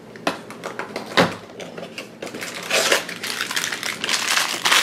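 Cardboard compartment lid of a toy box opened with a couple of sharp knocks in the first second or so, then a plastic wrapper handled and crinkling for the rest of the time.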